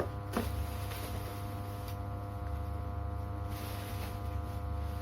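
A steady low hum with a set of even steady tones above it. Over it come a few faint clicks and a short rustle about three and a half seconds in as a microphone and its packaging are handled.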